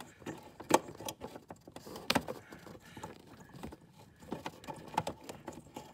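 Scattered light clicks and knocks of hard plastic being handled as an LED fog lamp bulb and its wire are worked into the fog lamp housing behind a car bumper. The sharpest clicks come under a second in and at about two seconds, with smaller taps after.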